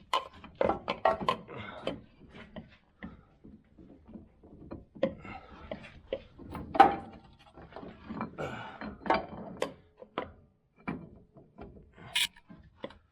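Irregular knocks, clunks and scraping of metal parts being handled as a truck's steering gear box is pushed up into position, with one louder knock about halfway through.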